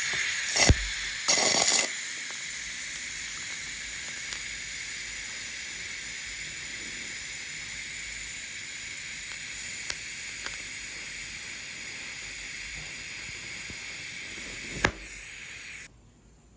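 TIG (GTAW) welding arc tack-welding a bullet tag on carbon steel pipe: a steady hiss with a few loud crackles as the arc starts. A sharp pop comes just before it stops near the end.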